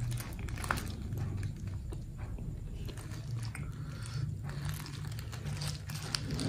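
Close-miked chewing and biting of a chicken shawarma, wet mouth sounds with scattered small crunches and clicks. The paper wrapper crinkles as it is peeled back.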